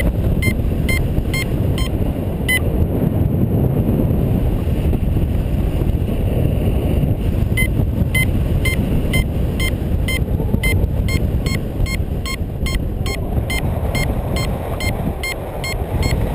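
Airflow buffeting the microphone of a paraglider in flight, a steady rumble, over the short regular beeps of a flight variometer at about two to three a second. The beeps thin out for a few seconds mid-way, then quicken again: the vario signalling lift.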